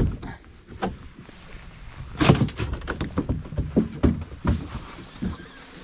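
Knocks and thumps of a boat's fish-box hatch being opened and shut as a freshly caught walleye goes in, the loudest bang about two seconds in.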